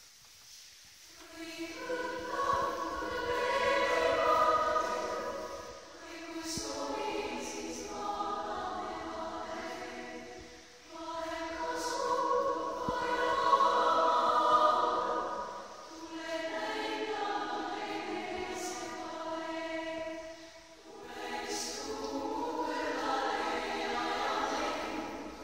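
A women's choir singing in several parts, coming in about a second in. The singing goes in long swelling phrases that ebb and start again roughly every five seconds.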